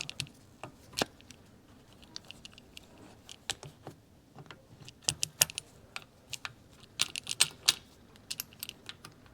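Small metal parts of a motorcycle engine's kickstarter mechanism clicking and clinking against each other and the crankcase as they are handled and fitted by hand: irregular light clicks, bunched into quick flurries about five and seven seconds in.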